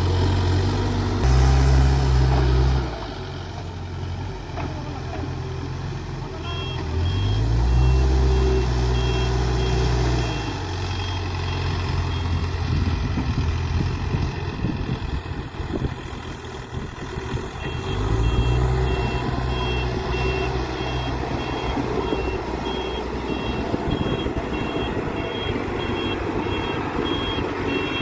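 Case 851EX backhoe loader's diesel engine running and revving up in three surges, with its reversing alarm beeping steadily at about two beeps a second while the machine backs up, first near the middle and again through the last third.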